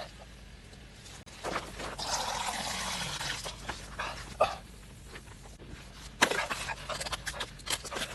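A dog, with a stretch of noise near the middle and a run of sharp clicks or knocks in the later part.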